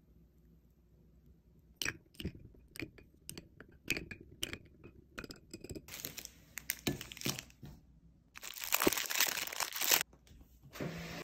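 A few light clicks and taps, then a plastic snack-bar wrapper crinkling and tearing as it is unwrapped by hand. The crinkling is loudest in the last few seconds.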